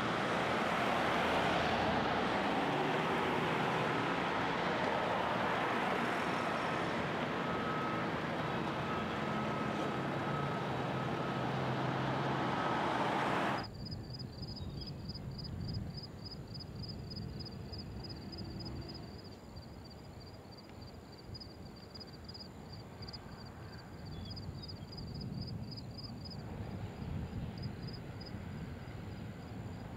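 Steady running of heavy site machinery, with a low hum and a faint high whine, cutting off abruptly about halfway through. After that, quieter outdoor background with a rapid, regular high-pitched chirping, about three chirps a second.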